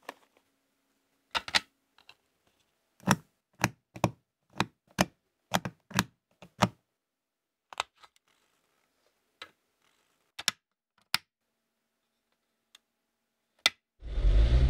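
Plastic Lego Technic beams and bricks clicking and clacking as they are handled and snapped together by hand: a quick run of about a dozen sharp clicks, then single clicks spaced out. Near the end a louder, steady low sound starts.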